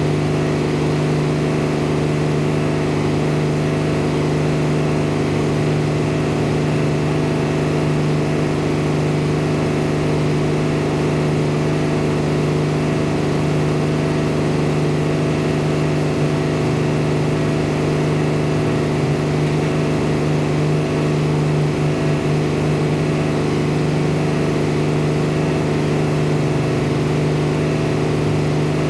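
Farm machinery engine running steadily at a constant speed, a continuous even hum with no revving or load changes.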